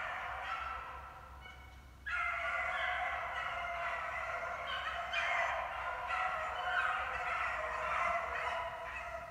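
A pack of beagles baying in full cry on a rabbit's track, many voices overlapping into a continuous chorus. The chorus dips briefly, then swells louder about two seconds in.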